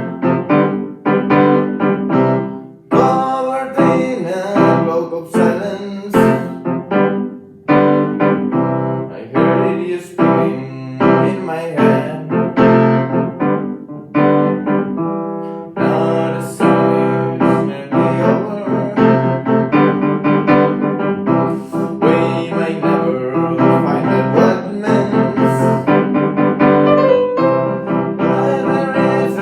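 Music: an instrumental passage led by piano, with many struck chords and runs.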